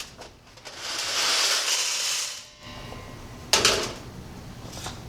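Dry, sieved aggregate hissing as it is emptied out of a metal sieve, for about two seconds. Then two sharp knocks of the sieve, about a second apart, the second fainter.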